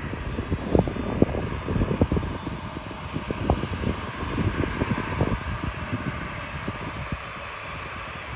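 Jet engine noise from a twin-engine airliner on final approach, a steady rush that grows a little stronger partway through. Irregular low thumps of wind buffeting the microphone run through it and are the loudest part.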